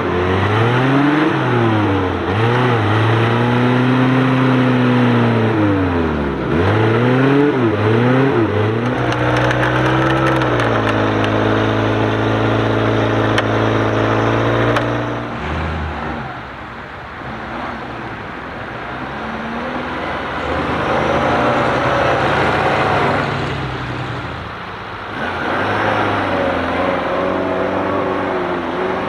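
Suzuki Samurai 4x4 engine revving up and down over and over as it works through deep mud, then holding steady revs. About 15 seconds in it drops to quieter, lower running, and an engine's pitch rises again near the end.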